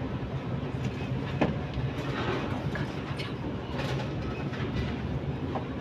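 Steady low mechanical rumble of heavy machinery running, with a few light clicks over it.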